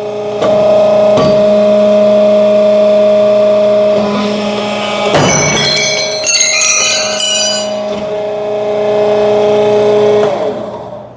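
Hydraulic pump and motor of a 63-ton alligator shear running with a steady hum. About five seconds in, the shear cuts through five pieces of #5 rebar at once, with a noisy burst and short high metallic ringing as the cut pieces come off. The machine winds down near the end.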